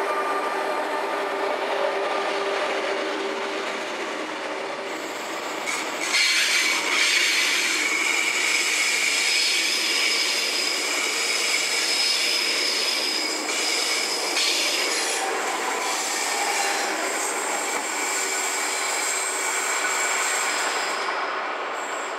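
Renfe Class 450 double-deck electric multiple unit pulling out and rolling past at low speed. From about six seconds in, its wheels squeal on the curved track with high, steady tones for roughly nine seconds, then the rolling noise carries on.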